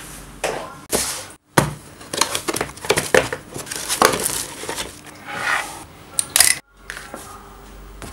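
Cardboard box of medical masks being handled on a wooden desk: a quick run of taps, knocks and crinkling rustles, broken twice by brief dropouts where the sound cuts out.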